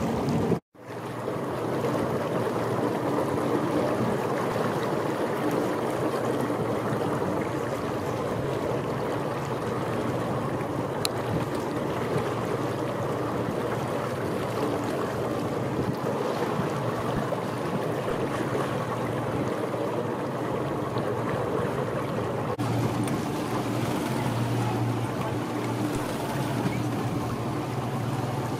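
Wind and choppy sea water on open water, with a low steady hum underneath that grows a little louder near the end. The sound briefly cuts out under a second in.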